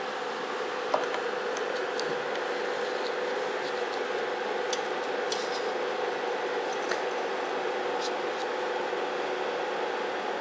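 Steady hum and hiss of room and equipment noise, with a few faint, short clicks.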